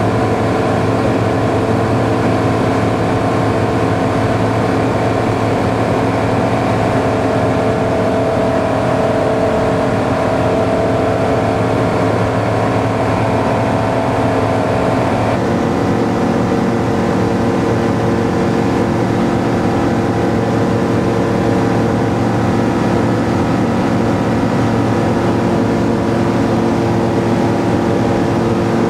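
Steady drone of a Kitfox light aircraft's engine and propeller in flight, first heard inside the cabin. About halfway through the tone shifts abruptly to a different steady drone.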